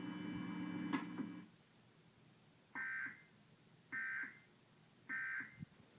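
Emergency Alert System end-of-message code: three short bursts of SAME digital data tone, about a second apart, which mark the end of the alert. Before them a steady low hum cuts off about a second and a half in.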